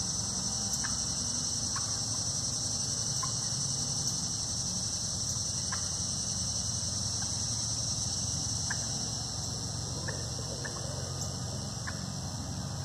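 A steady, high-pitched chorus of crickets and other evening insects, with about eight short, single clucks from turkeys roosting in the trees scattered through it, and a low steady rumble underneath.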